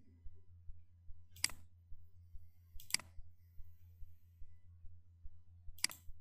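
Three sharp computer-mouse clicks, the first two about a second and a half apart and the last near the end, as points of a line are picked. A low steady hum runs underneath.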